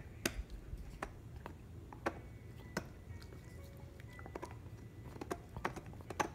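Dog gnawing on a water buffalo horn: irregular sharp clicks and cracks of teeth on hard horn, one or two a second.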